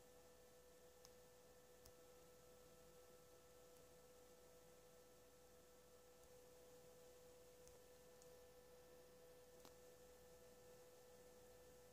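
Near silence, with a faint steady single tone and a couple of tiny ticks.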